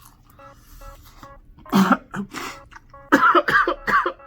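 A person coughing, brought on by very hot spicy chicken catching the throat: one hard cough about two seconds in, then a quick run of coughs near the end. Quiet background music plays underneath.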